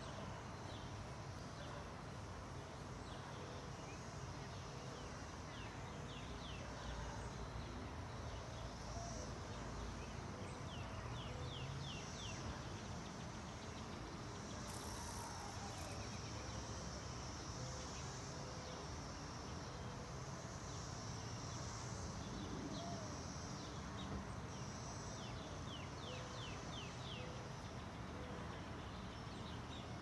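Outdoor insect chorus: a steady buzzing background, with short runs of quick chirps every few seconds.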